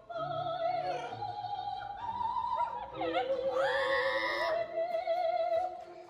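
Operatic singing playing from a TV, with long held notes and vibrato. A pet parrot sings along in sliding pitches, loudest in a rising call about halfway through.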